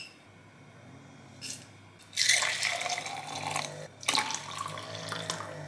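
Water being poured into a glass French press over green tea, splashing as it fills, in two pours with a short break about four seconds in. A light clink comes shortly before the pouring starts.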